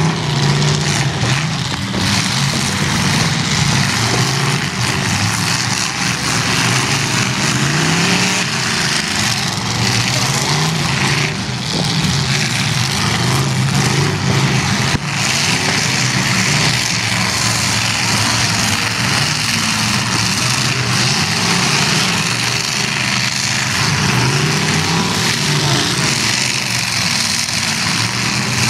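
Demolition derby cars' engines running and revving over one another, with pitch rising and falling, and a couple of sharp knocks in the middle from collisions.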